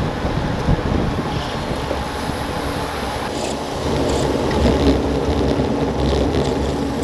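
Wind buffeting a bike-mounted action camera's microphone at about 40 km/h, mixed with the whir of road-bike tyres on asphalt in a bunch of riders; louder from about four seconds in.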